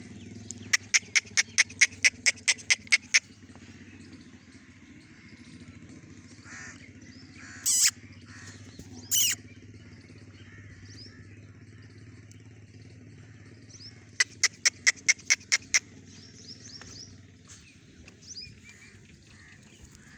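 A bird calling in two fast runs of short, harsh notes, about four a second, over a steady low hum. Two short, loud, noisy bursts come in the middle.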